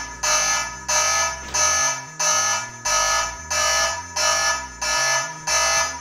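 Security dome siren blaring a loud pulsing alarm, about three blasts every two seconds, each a shrill cluster of steady high pitches. It is set off because the door was opened while the home security system was armed.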